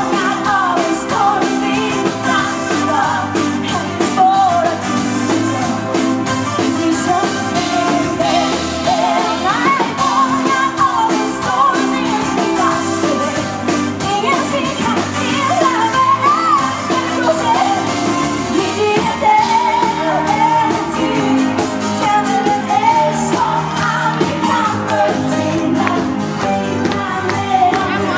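A live band playing a pop song with drums, electric guitar and keyboards while a female lead singer sings the melody, backed by a small group of backing singers.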